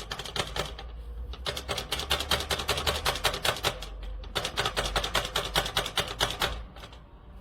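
A rapid, even series of sharp clicks, about seven or eight a second, in runs broken by short pauses about a second in and at about four seconds, stopping near the end, over a steady low hum.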